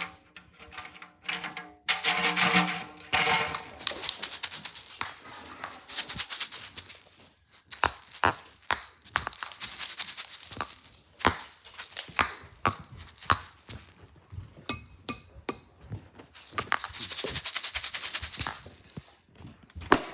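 Irregular rattling, shaking and tapping sounds, with a longer run of shaken rattling near the end.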